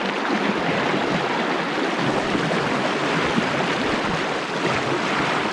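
Steady rush of water in a fast, shallow mountain river channel.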